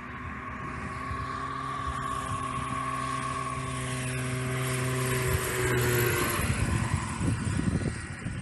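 Ultralight aircraft's Rotax 582 two-stroke engine and propeller passing close. The sound grows louder to a peak about six seconds in, then its pitch drops and it fades.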